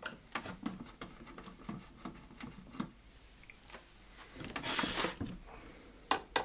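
Hands handling a wood-cased stereo receiver and tools on a workbench: scattered light clicks and knocks, a brief scraping rustle about two thirds of the way in, and two sharp clicks near the end.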